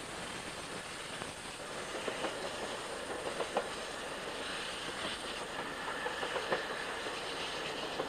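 GWR Castle-class steam locomotive and its train running along the track: a steady running noise with scattered sharp clicks of the wheels over the rail joints.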